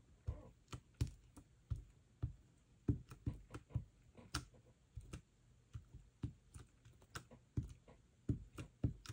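Light, irregular taps and clicks, about two or three a second: a Diamond Press pastel paint stick dabbed and rubbed onto vellum through a stencil.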